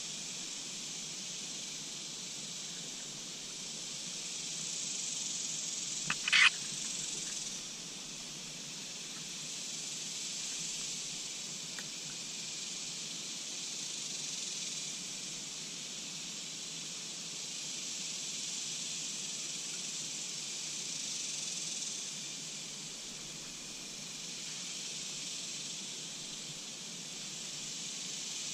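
Steady high-pitched hiss of an insect chorus, swelling and fading slowly in waves. About six seconds in, a short sharp snap cuts through it, the loudest moment.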